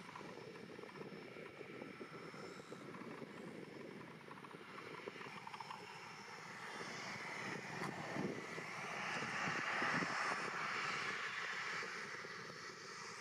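Airport apron machinery around a parked jet airliner: a steady hum and rush that swells up about seven seconds in, is loudest near ten seconds, then eases off, with a few knocks along the way.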